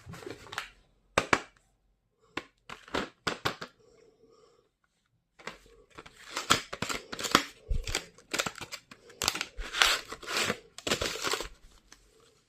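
Stationery packaging being handled and opened: short noisy rustles and clicks, scattered at first and coming thick and fast from about halfway.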